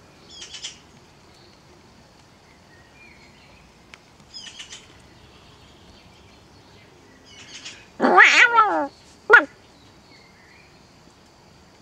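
A loud, falling, mewing animal call lasting under a second, about eight seconds in, followed by a short second call. Faint high chirps sound a few times.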